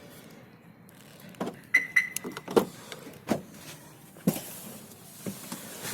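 A series of separate clicks and knocks, about seven in all, with a short high tone about two seconds in.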